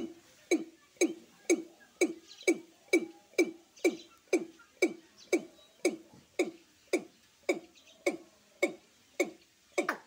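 Male watercock calling: a steady series of low, short notes, about two a second, each starting sharply and dropping in pitch.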